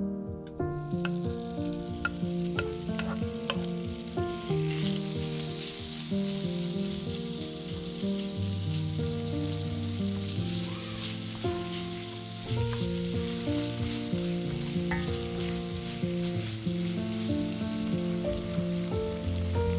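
Diced bacon sizzling as it fries in a nonstick pan, stirred with wooden tongs, with a few light clicks in the first few seconds as the pieces go in. Soft background music plays under it.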